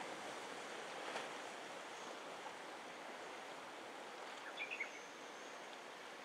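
Sea surf washing over a rocky reef, a steady even hiss. A few short high chirps come a little before the five-second mark.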